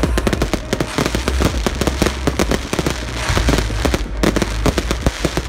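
Aerial fireworks bursting in quick succession: a dense run of sharp bangs and crackles over deep booms.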